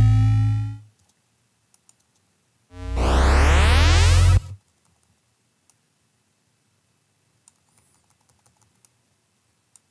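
Synthesized sound-design effect played back dry, with no reverb on it. It is a layered electronic tone with rising pitches that fades out about a second in, then a second burst of steeply upward-sweeping synth tones that cuts off after about a second and a half. Faint computer keyboard and mouse clicks follow.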